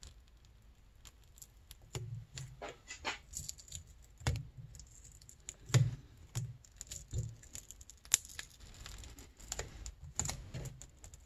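Irregular small clicks and crackles as a thin plastic-film hand-warmer heating element is peeled off a handlebar, its adhesive letting go, with a few soft knocks of hands on the bar.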